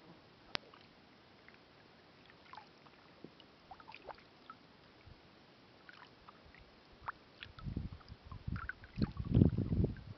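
Kayak moving on a calm river: faint water drips and small ticks at first, then from about seven seconds in, irregular low rumbling bursts that grow louder near the end.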